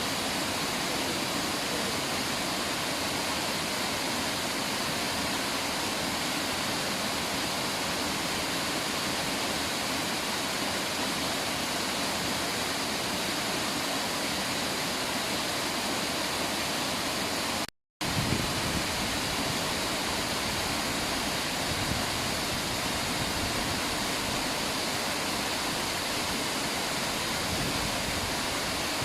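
River water rushing steadily. It cuts out completely for a moment about 18 seconds in, then resumes with a deeper rumble.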